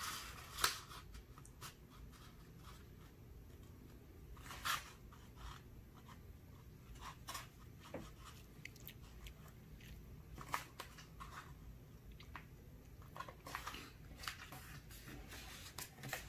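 A sheet of A4 paper being folded in half and creased flat by hand: faint scattered rustles and crinkles, the loudest shortly after the start and again about four and a half seconds in.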